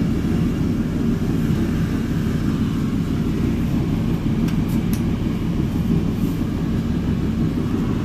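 Zanussi TC 7102 tumble dryer running with its drum turning: a steady low rumble. Two light clicks come about halfway through.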